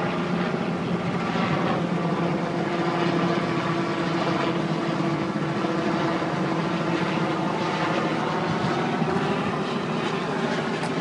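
Helicopter running steadily, its engine and rotor noise a continuous drone with a low hum underneath.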